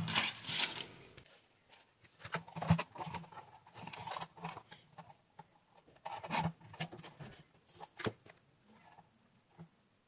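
Hands handling thin wires and a flat ribbon cable on a workbench: scattered light clicks, rustles and scrapes.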